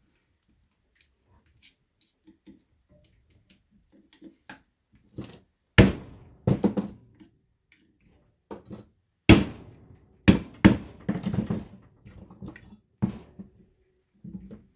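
Metal fluorescent light ballast casings being cracked open: about four loud sharp knocks with clattering and rattling in between, after a few quiet seconds of small ticks.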